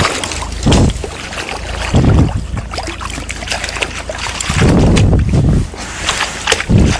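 A rainbow trout of about 45 cm thrashing and splashing at the surface as it is drawn into a landing net, water sloshing and spattering, in several louder surges.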